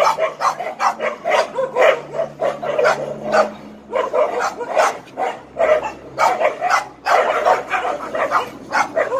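A pack of dogs barking rapidly and continuously, several barks a second, at each other through a chain-link gate.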